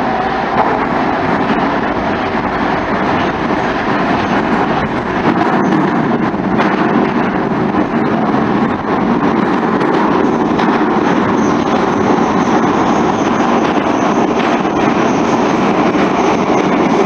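Saint Petersburg Metro train running through the tunnel, heard from inside the car: a loud, steady noise of wheels on rails.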